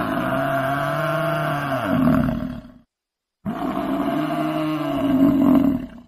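Buffalo calling: two long, low calls, the second starting about three and a half seconds in, each getting louder toward its end.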